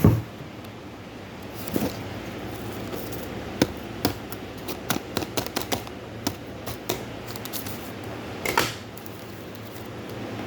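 A knock, then scattered light clicks and taps of small objects being handled, with a short rustle and a louder scraping rustle near the end.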